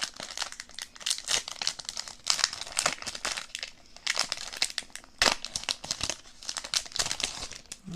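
Foil trading-card booster pack being crinkled and torn open by hand, a run of irregular sharp crackles and tearing sounds.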